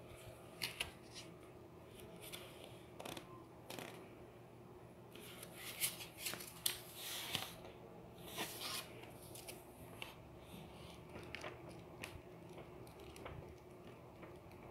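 Paperback book being handled: a hand sliding over the cover, then the book opened and its paper pages leafed through, giving scattered rustles and soft taps that come thickest in the middle.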